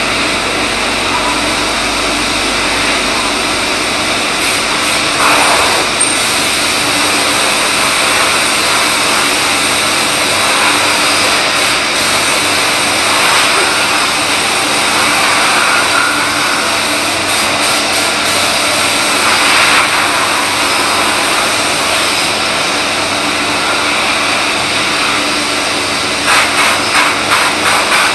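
CNC lathe turning a shaft: steady, loud machining noise of the spindle and cutting, swelling now and then, with a rapid rattling clatter near the end.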